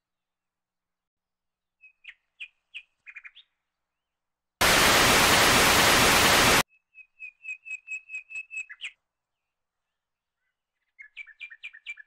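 A burst of TV static hiss about two seconds long, the loudest sound, set between runs of short high chirps: a few before it, a quick run of about ten right after it, and another handful near the end.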